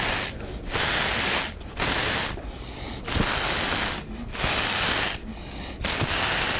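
Mouth-blown atomizer sprayer hissing in a series of short, forceful blasts, one per breath. There are about six puffs, each half a second to a second long, with brief pauses between them.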